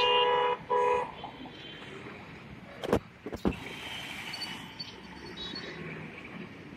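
Road traffic with a vehicle horn honking twice at the start, two short blasts, then two sharp knocks about three seconds in, over the steady noise of passing cars.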